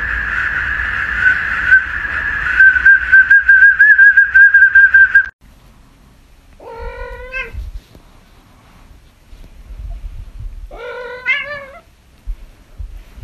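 A loud, high, wavering tone that cuts off abruptly about five seconds in, followed by a house cat meowing twice, each meow about a second long.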